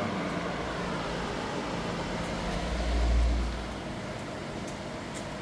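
Mobile misting cooler with a 60 cm fan running, giving a steady whirring hum. There is a brief low rumble about three seconds in.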